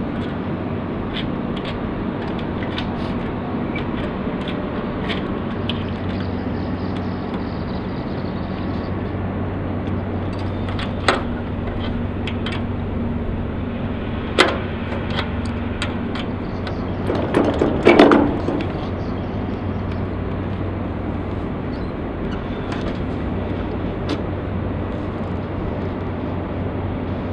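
Steady low engine-like hum under outdoor noise, broken by a few sharp knocks, with the loudest a short run of clunks about two-thirds of the way through, as the sailboat's aluminium boom and mast hardware are handled.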